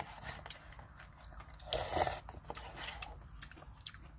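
Close-up eating sounds of a person eating cup ramen: chewing with small mouth clicks, and one louder noisy sound about two seconds in.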